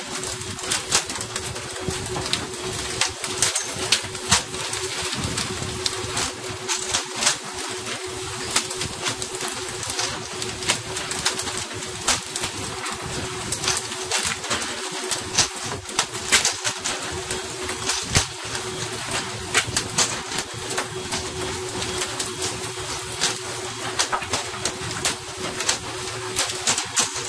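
Water rushing and spraying along the side of a pole-and-line tuna boat over a steady hum, with frequent sharp slaps as tuna are flung onto the deck.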